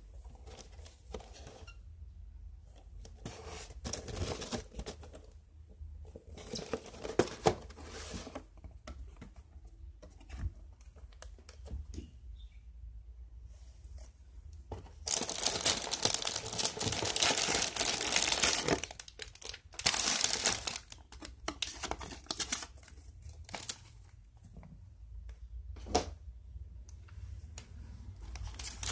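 Plastic bags of model-kit runners and the cardboard kit box being handled, crinkling and rustling in irregular bursts, with a long stretch of loud crinkling about halfway through.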